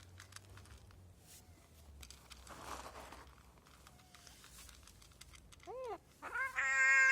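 Faint clicking and crinkling, then near the end a cat meows twice: a short meow, then a longer, louder one.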